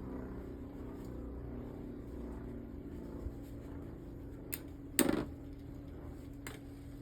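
Beyblade spinning tops whirring in battle with a steady hum that slowly fades, a small click about four and a half seconds in and a sharp clack about five seconds in.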